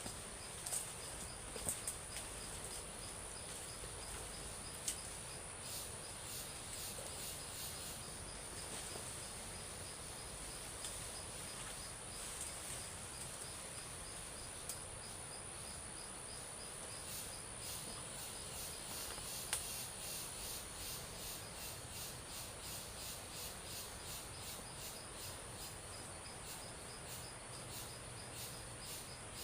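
Insects chirping in a steady high-pitched trill. A few sharp clicks come in the first part. From a little past halfway, a second insect pulses about twice a second over the trill.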